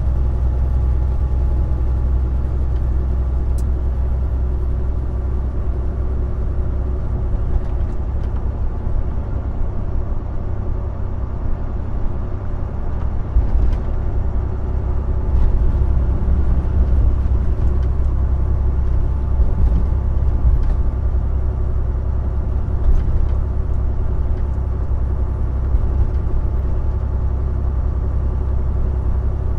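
Cab noise of a Volvo semi-truck cruising at highway speed: a steady low drone of diesel engine and road rumble heard from inside the cab, with a few faint ticks.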